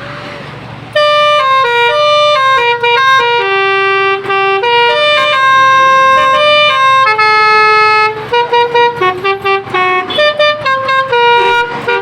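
Basuri telolet musical car horn playing a tune: clear horn notes stepping up and down in pitch, starting about a second in. From about eight seconds in the notes break into short, rapid toots.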